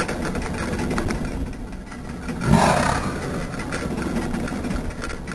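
Car engine running close by over a steady low rumble, with one brief louder burst about two and a half seconds in.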